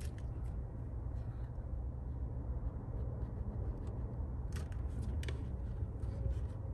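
Faint clicks and scrapes of a thin plastic pry tool working along the adhesive seam of a phone's back glass, a few sharp ticks clustered about four and a half to five and a half seconds in, over a steady low hum.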